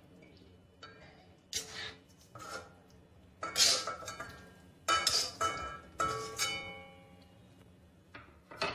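A serving spoon scrapes and knocks against an aluminium kadai while curry is scooped out, about five times at roughly one-second intervals. The pan rings briefly after the stronger strikes.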